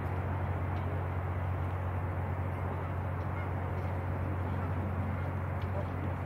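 Steady low drone of the idling fireboat's engines, with a constant background hiss and no change in level.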